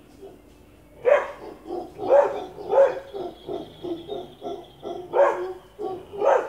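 A dog barking about five times, the first about a second in, up at howler monkeys in the trees. Between the barks the monkeys keep up a rapid, rhythmic pulsing of deep grunting calls, several a second.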